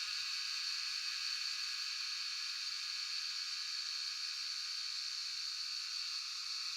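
Cicadas droning in a steady, unbroken high-pitched buzz.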